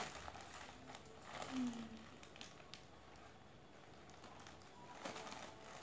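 Faint rustling of a thin black plastic bag being handled and cut open with scissors, with a few small snips and clicks.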